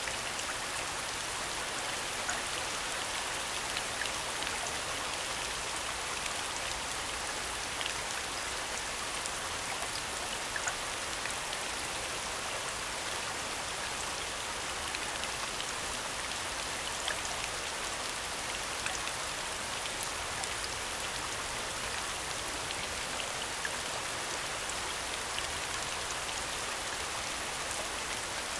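Steady falling rain: an even hiss of rain with occasional sharper drop ticks scattered through it.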